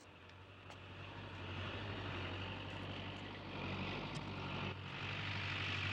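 Farm tractor engine running steadily, growing louder over the first second or two as the tractor drives in.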